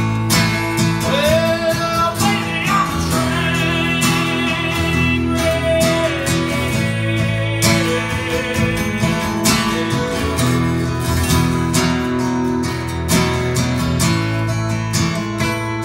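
Acoustic guitars playing an instrumental country passage: steady strummed chords with a lead melody line that bends and slides in pitch over them.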